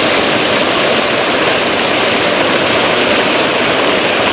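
Paddlewheel aerator churning the pond water: a steady, even rushing splash.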